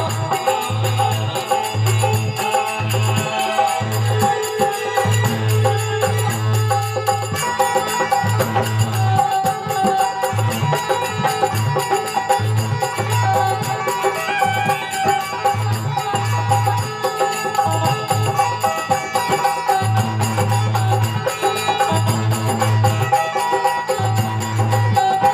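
Instrumental passage of a folk bhajan: a keyboard organ plays sustained melody notes over steady, rhythmic percussion, with no singing.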